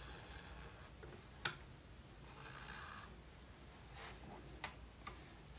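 Regular-size black Sharpie marker drawn along lines on mixed media sketchbook paper: faint scratchy rubbing strokes. A sharp click comes about a second and a half in, and two lighter clicks come near the end.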